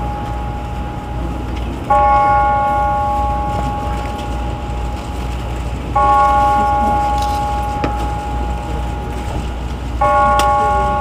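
A single church bell tolling slowly as a funeral knell, struck three times about four seconds apart, each stroke ringing on until the next.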